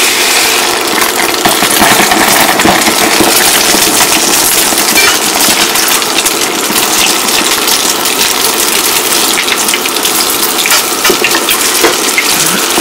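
Whisked, frothy beaten eggs frying in oil heated to smoking in a nonstick pan: a loud, continuous sizzle with dense crackling as the egg puffs up and sets.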